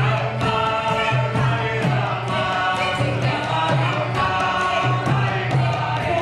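Music: several voices singing together over steady rhythmic percussion, with a low note pulsing about once a second.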